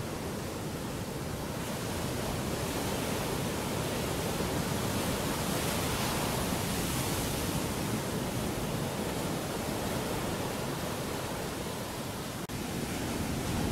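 Ocean surf as a steady, even rush of breaking waves, swelling a little around the middle.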